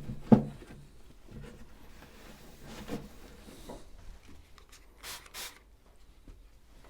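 Cloth rubbing over a plastic sewing-machine cover, with a sharp knock just after the start and two quick sprays of a trigger spray bottle of glass cleaner about five seconds in.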